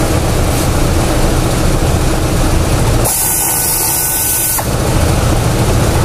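Compressed air from a blow gun on a shop air hose, blowing at the removed HVAC housing parts: a loud steady rush. From about three seconds in, for a second and a half, it changes to a sharper high hiss with a thin whistle.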